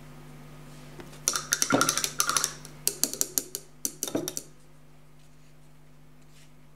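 Hands handling things on a wooden desk: a quick run of clicks, taps and rustles starting about a second in and lasting about three seconds, over a faint steady hum.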